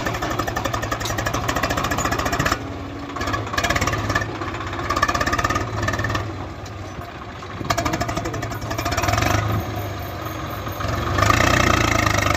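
Swaraj 744 FE tractor's three-cylinder diesel engine running under load while it pulls a trolley full of sand. The engine eases off about two and a half seconds in, picks up again around eight seconds, and is loudest near the end.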